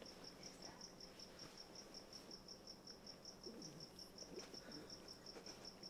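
Faint, steady high-pitched chirping, like a cricket, repeating about six times a second. Faint rustling of fabric comes in around the middle as the dog noses through a pile of clothes on the couch.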